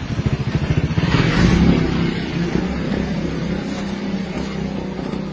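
A small engine running, pulsing quickly at first, swelling louder about a second in, then settling to a steady hum.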